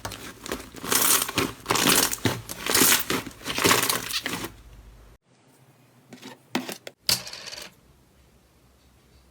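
Slime being squeezed and kneaded by hand, making a dense run of crackling and popping for about four and a half seconds. It stops abruptly, and a few sharp clicks or pops follow over a much quieter background.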